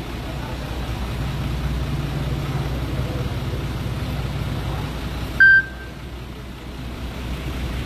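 Steady low rumble of an idling vehicle engine, with one short, loud electronic beep about five seconds in, after which the rumble drops away.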